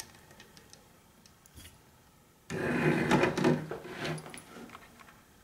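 Plastic case halves of a Texas Instruments Speak & Spell handled on a tabletop. A few faint clicks are followed, about two and a half seconds in, by a sudden loud scraping and rubbing of plastic that lasts about a second and a half and then trails off.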